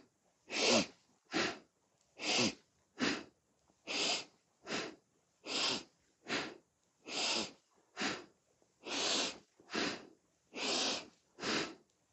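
A woman breathing hard and rhythmically in time with seated cat-cow spinal flexes, a longer breath alternating with a shorter one. The inhale goes with the back curving out and the exhale with it contracting in, about seven breath pairs at a steady quick pace.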